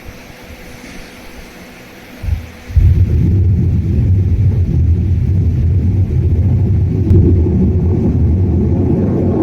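A loud, low, steady rumble begins suddenly about three seconds in, after a quiet start, and runs on without a break.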